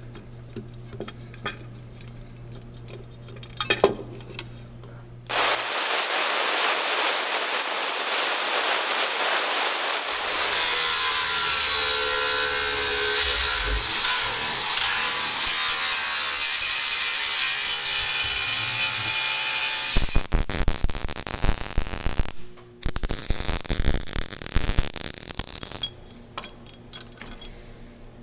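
Handheld angle grinder grinding steel, running in one long steady pass from about five seconds in, then in short broken passes until a couple of seconds before the end. Light metallic clicks of hand-tool work come before and after the grinding.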